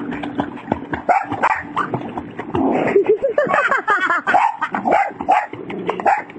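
A boxer dog barking and yipping excitedly while splashing in a swimming pool, with pitched, wavering calls in quick succession.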